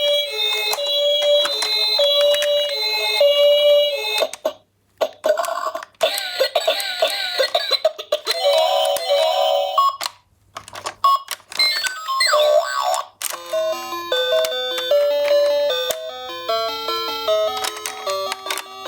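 Electronic sirens of toy ambulance minicars: first a two-tone hi-lo siren alternating between two notes, then, after a short break, wailing sirens that sweep up and down. From about 14 s a simple electronic melody of stepped notes takes over.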